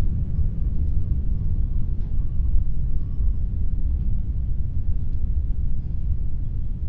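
Heavy wind blowing as a deep, steady rush, its level wavering slightly.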